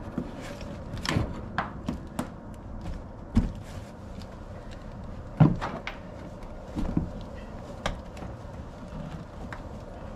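Scattered knocks and clunks of someone working and moving about in a car's rear seat area, with the seat cushion removed; the loudest thump comes about five and a half seconds in.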